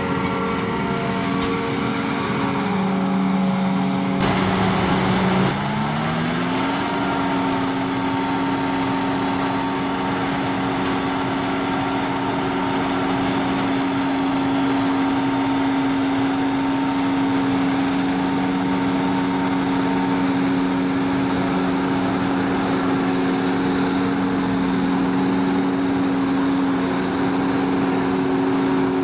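Heavy farm diesel machinery at work, chiefly a John Deere 7450i self-propelled forage harvester chopping maize, with a steady engine and machine hum. The sound changes abruptly about four seconds in, then its pitch rises over a second or so and holds steady.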